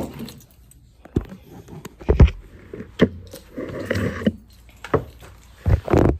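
Handling noise from a hand-held phone being carried along with other things: dull thumps about once a second, with rustling and knocking in between.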